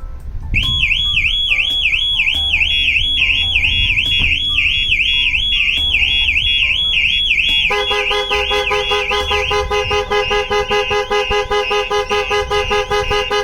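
Starline Solaris vehicle alarm on a Ford Transit van going to full trigger after its door lock is picked: a siren warbling up and down about three times a second starts half a second in. About eight seconds in, the van's horn takes over, honking in rapid repeated pulses.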